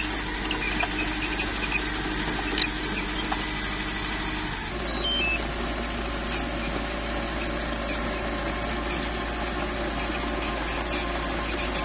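Small bulldozer's engine running steadily with faint high squeaks, the sound changing abruptly a little under five seconds in.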